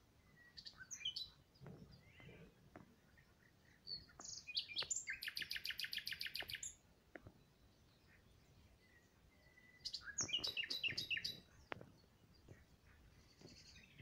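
A songbird singing: a few short high notes about a second in, then two song phrases, each a run of quick high notes, about four and ten seconds in. The first phrase ends in a long, fast trill.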